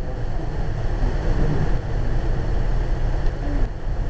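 Steady low rumble inside a moving commuter train passenger car, the run of its wheels over the rails.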